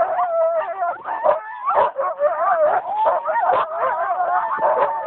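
A chorus of sled huskies barking, howling and yelping over one another with many wavering overlapping cries. This is the excited clamour of sled dogs held on the brake, impatient to run.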